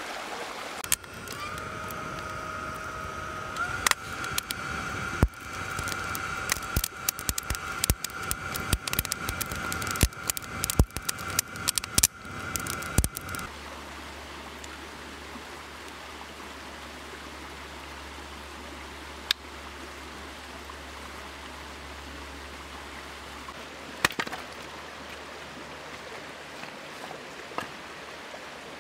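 Creek water running steadily. For about the first half, many sharp clicks and knocks and a steady high tone lie over it. The rest is the stream alone, with a few faint clicks.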